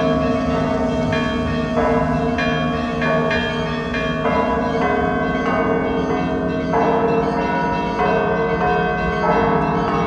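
Russian Orthodox bell ringing (zvon) on the Danilov Monastery's belfry bells. Many bells of different pitches are struck in quick succession, a few strikes a second, over the lasting ring of the larger bells.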